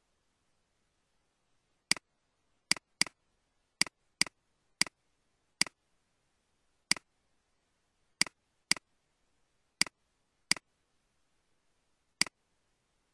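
Computer mouse button clicking: about a dozen sharp single clicks at uneven intervals, starting about two seconds in.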